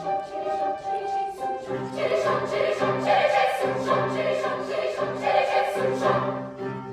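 Choral music: a choir singing sustained chords, growing fuller and louder about two seconds in.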